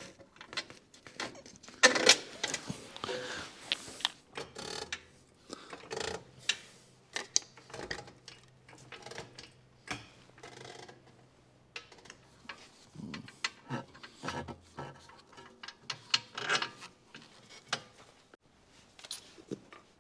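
Hand tools working on metal suspension bolts: irregular clinks, knocks and rubbing as a lower control arm is tightened. A faint low steady hum runs underneath for several seconds in the middle.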